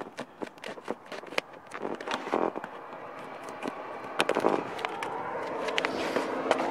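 Hand snips cutting a sheet of dark roofing membrane: a quick run of sharp snips and crackles, then the sheet rustling and scraping as it is handled towards the end.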